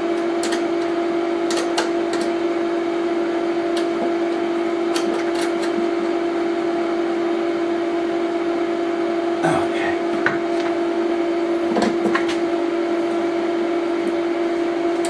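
A steady mid-pitched electrical hum with a fainter higher overtone, over which come scattered small clicks and taps of battery cable lugs and terminal screws being fitted to a solar inverter's battery terminals.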